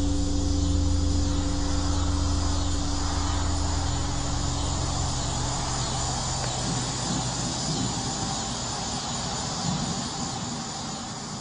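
A low, steady droning hum of the kind reported as a strange sound in the sky, fading out about halfway through. Insects chirp and a steady hiss run underneath. The whole sound fades down near the end.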